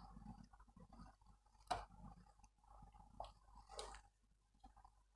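Faint handling noise with a few sharp plastic clicks, the clearest about a second and a half in and another near the end: a PC fan's PWM cable connector being worked onto the motherboard's CPU fan header.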